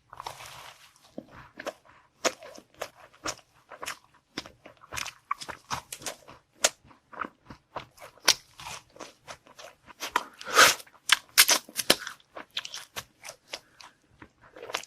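Close-miked eating: irregular crisp crunches and chewing of a dessert, the loudest crunches about two-thirds of the way through.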